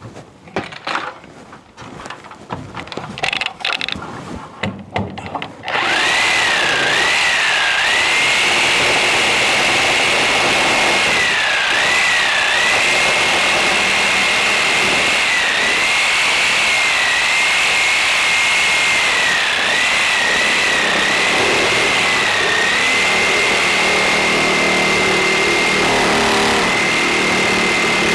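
A few knocks and handling clatter, then about six seconds in a power saw starts and runs steadily for the rest of the time. Its high motor whine dips briefly in pitch again and again as the blade takes load in the cut.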